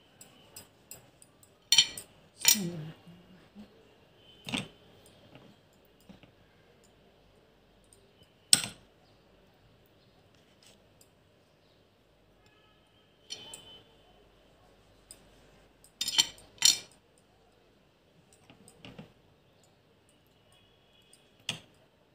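Scattered clinks and knocks of tableware being handled on a tray: a metal spoon, a glass bowl and a ceramic plate. Single sharp hits come a few seconds apart, some in quick pairs.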